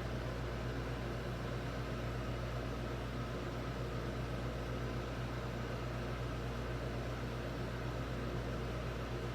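Steady hiss with a low, even hum, unchanging throughout; no thunder claps or other distinct events.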